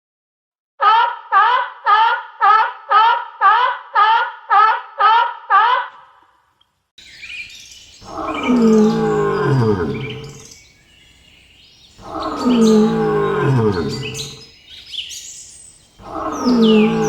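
Animal calls: a quick run of about eleven short pitched calls, two a second, then a long low call falling in pitch, repeated three times about four seconds apart, with birds chirping over it.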